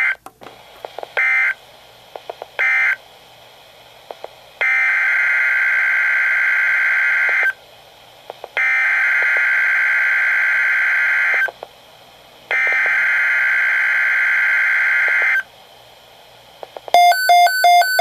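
NOAA Weather Radio digital data bursts through a Midland weather alert radio's speaker: three short bursts, then three long two-tone buzzing bursts of about three seconds each, a second apart. These are the SAME header for a severe thunderstorm watch being sent again. Near the end the radio's own alert starts beeping in fast regular pulses.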